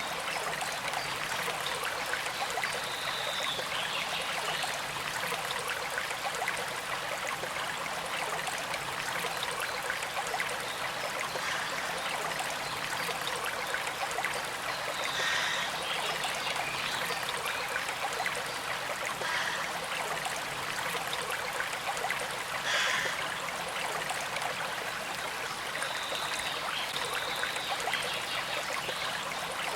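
Gentle creek flowing and trickling steadily, with a few brief louder spots now and then.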